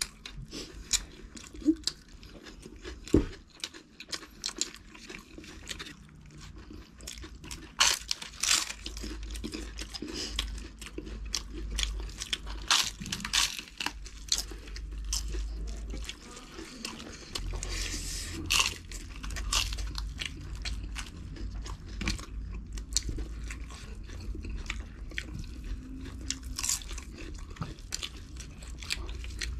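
Crisp papad crunching as it is bitten and chewed, with many sharp, irregular crunches alongside wet chewing.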